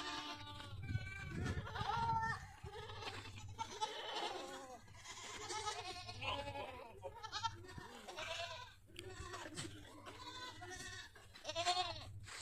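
A herd of goats bleating, many wavering calls overlapping one another, with a louder bleat near the end.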